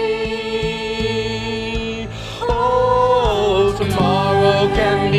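A song: a singing voice holds a long note over steady accompaniment, then the melody moves on, louder, about two and a half seconds in.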